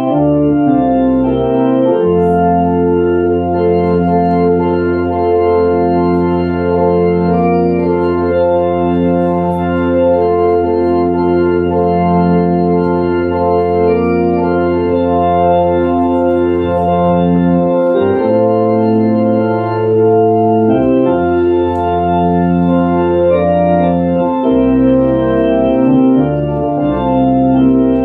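Organ playing slow, held chords over a bass line, the chords changing every few seconds without any beat.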